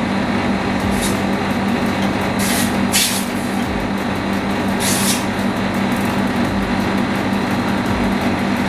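Split-type air conditioner's outdoor unit running with a steady low hum, while it is low on R22 refrigerant at about 42 PSI suction. About four short hisses break in during the first half.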